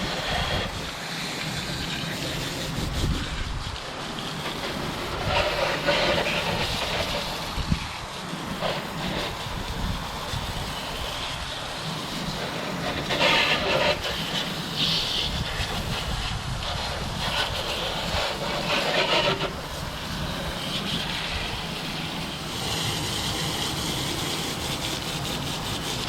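Garden hose spraying water onto muddy RC cars: a steady rushing hiss that gets louder and brighter in several spells as the spray hits the chassis.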